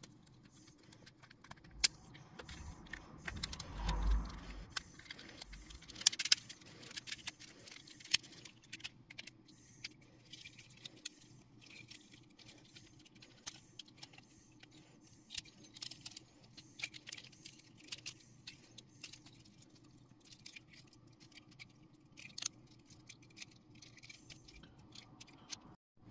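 Plastic parts and joints of a Transformers Autobot JP12 action figure clicking and rattling at irregular intervals as it is twisted by hand from Jeep into robot mode, with a brief low rumble about four seconds in.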